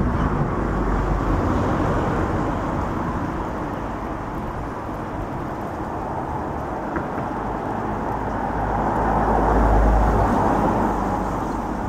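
Wind gusting on the microphone: an uneven low rumble that swells about nine to ten seconds in, over a steady outdoor hiss.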